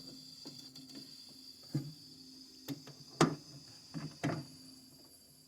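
Mini refrigerator's thermostat dial clicking about six times as it is turned to off, over the low steady hum of the running compressor. The hum stops near the end as the compressor shuts off.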